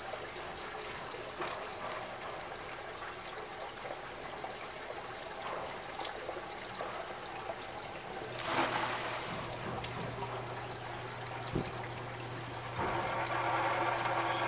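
Water trickling into a sewage ejector basin. About eight seconds in, the Little Giant 9SN-CIA-RF sewage ejector pump kicks on with a surge of rushing water and a steady motor hum, pumping out the basin on its roughly 8-second run cycle. About four seconds later it grows louder, with a buzzing tone.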